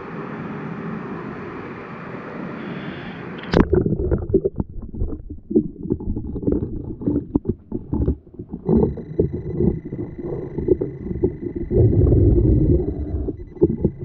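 Waterfall rushing, cut off about three and a half seconds in as the camera goes under water. After that comes a muffled underwater rumble with irregular knocks and bubbling, and a steady high tone comes in about nine seconds in.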